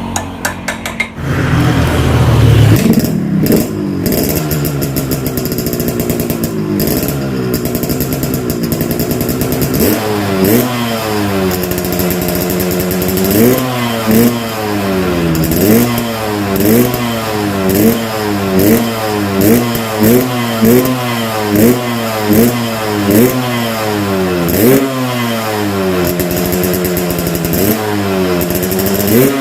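Yamaha RX-King two-stroke single-cylinder engine, its exhaust muffler hollowed out, starting about a second in, settling for several seconds, then blipped over and over: revs rising sharply and falling back about once a second.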